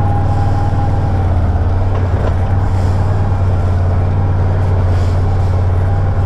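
Can-Am Maverick Sport 1000's V-twin engine running steadily as the side-by-side drives along a rough trail, heard from inside the open cab.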